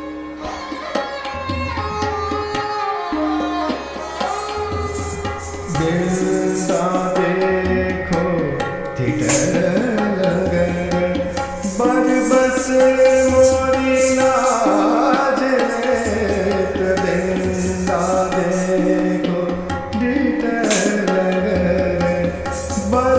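Hindustani classical music accompanying Kathak dance: tabla playing a steady rhythmic cycle under a sustained melodic line that holds notes and glides between them.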